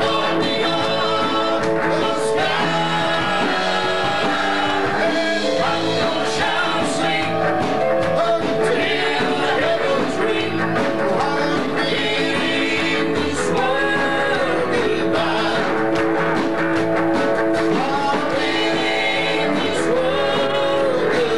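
Southern gospel male vocal quartet singing in four-part harmony, backed by a live band.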